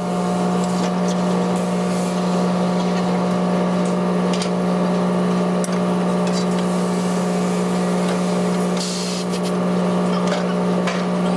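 A steady machine hum at one even pitch, with light clicks, rubbing and a short hiss of tyre work over it about nine seconds in.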